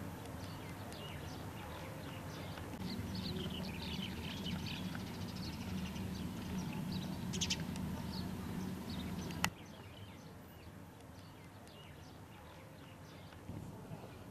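Small birds chirping over a low steady hum. Both cut off abruptly about two-thirds of the way through, leaving faint outdoor ambience.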